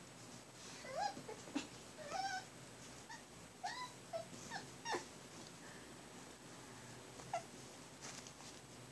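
Young puppies squeaking and whimpering: short high-pitched squeals that bend up and down in pitch, about ten of them packed into the first five seconds and one more a couple of seconds later.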